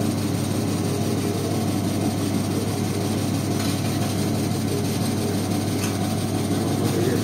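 Vegetable seed coating machine running: a steady low motor hum under an even rushing noise of the seeds churning in its steel bowl.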